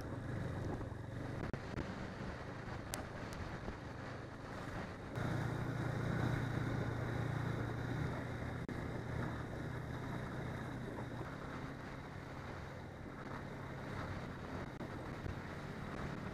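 Snowmobile engine running steadily under way, its hum rising clearly about five seconds in as the throttle opens, then easing back a little later on, with wind buffeting the microphone.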